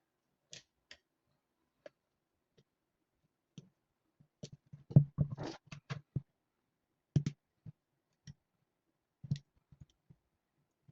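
Irregular clicks and knocks of small hard parts being handled and set down, with a quick run of them about halfway through.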